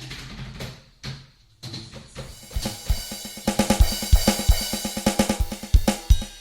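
Drum kit played with sticks: a few light, sparse hits, then about two and a half seconds in a full groove of bass drum, snare and cymbals.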